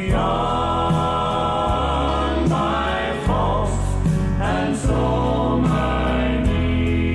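A Christian worship song: sung voices with vibrato over a band with bass and a steady beat.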